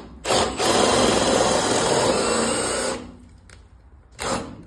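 FLEX cordless drill boring a hole through a timber ceiling joist, running steadily for about three seconds after a brief stop just after it starts, then stopping. The bit is not yet through the wood.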